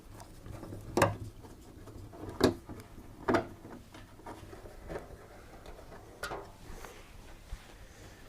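Scattered sharp clicks and knocks from screws being undone and the heater cover of a tumble dryer being handled. Three louder ones come in the first three and a half seconds, then two fainter ones later.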